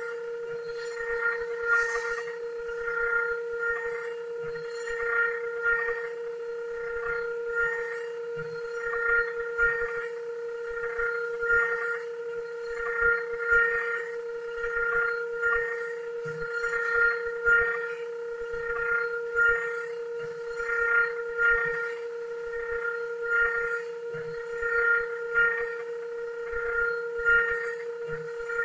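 CNC woodworking machine's spindle running at a steady high whine while its cutter works a wooden table leg. The cutting noise swells and fades about once a second as the tool passes over the wood.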